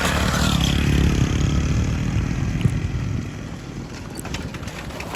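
Motorcycle engine running steadily as the bike is ridden, getting quieter about three and a half seconds in.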